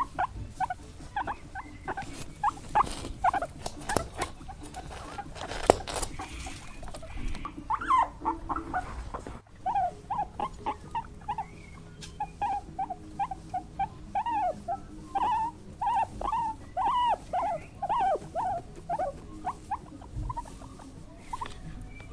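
Small animals squeaking over and over: short high squeaks that bend in pitch, several a second.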